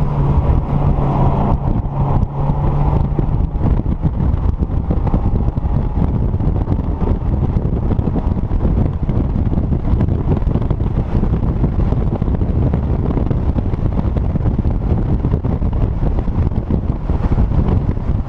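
Mazdaspeed Miata's turbocharged 1.8-litre four-cylinder running at speed on track, heard from the open cockpit under heavy wind buffeting on the microphone. The engine's steady note is plainest in the first few seconds, after which wind rush covers most of it.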